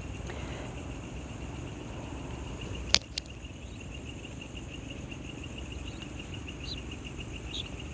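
Crickets chirping in a steady, fast, even pulse, with one sharp click about three seconds in.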